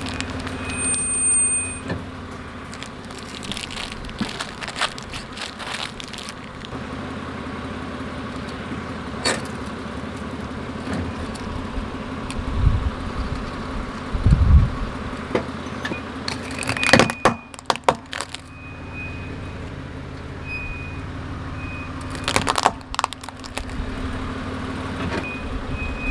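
Car engine running steadily, with sharp cracks and crunches at intervals as objects are crushed under its tyres, and a few low thumps midway.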